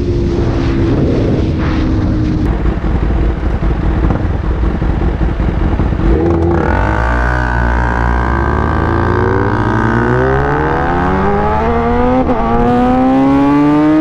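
Superbike engine and exhaust heard from the rider's seat, at first a steady engine note under heavy wind noise. From about six seconds in the engine note climbs steadily under hard acceleration, dips briefly at an upshift about twelve seconds in, then climbs again.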